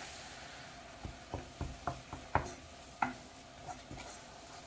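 Wooden spoon stirring flour into melted butter and oil in a granite-coated pot, a roux for béchamel, knocking and scraping against the pan in irregular taps from about a second in. A faint sizzle from the hot fat runs underneath.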